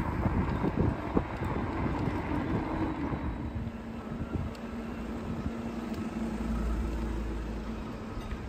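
Wind on the microphone and road noise from a bicycle riding down a lane, giving way about a third of the way in to the steady low hum of a car engine close by.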